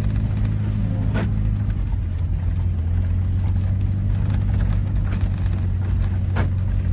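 Vehicle engine running steadily with a low hum, heard from inside the cab over a noisy wash that includes rain on the vehicle. Two sharp clicks stand out, about a second in and near the end.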